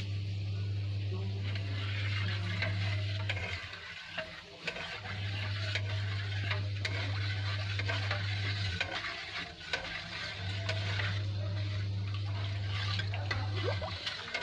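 Hot oil sizzling and crackling in a kadhai with asafoetida and fenugreek seeds just added for the tempering. A low hum cuts in and out three times underneath.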